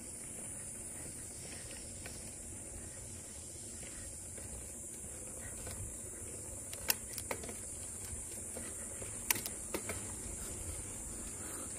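Steady rumble and high hiss of riding a bicycle, with a few sharp clicks between about seven and ten seconds in.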